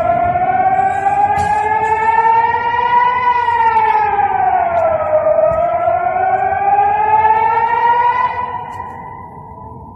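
Air-raid warning siren wailing, its pitch slowly rising and falling twice, then holding and fading away near the end.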